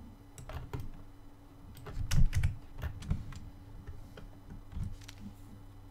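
Computer keyboard keys clicking irregularly in quick, scattered presses, with the loudest cluster about two seconds in.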